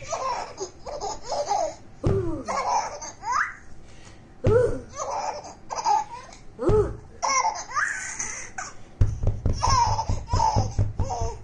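A baby laughing in a string of giggling fits, a new burst starting about every two seconds.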